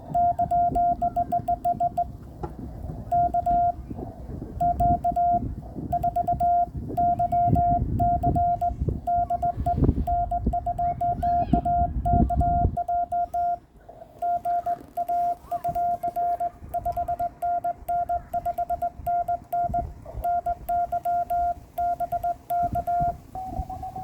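Morse code (CW) on an amateur radio: a steady beep keyed on and off in quick dots and dashes. A low rumble sits under it through the first half and then stops, and near the end the beep moves to a slightly higher pitch.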